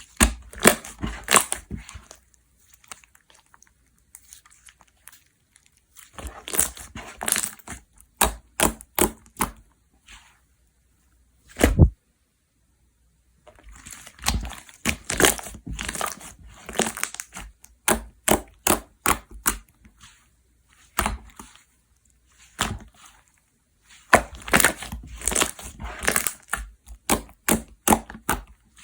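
Jiggly slime being squeezed and pressed by hand, giving runs of sharp crackling clicks and pops a few seconds long, with short pauses between them.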